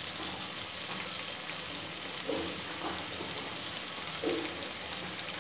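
Onion, ginger and tomato masala frying in oil in a pot, giving a steady, even sizzle.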